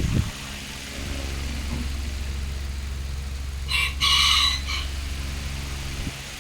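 A rooster crowing once, about four seconds in, over a steady low hum.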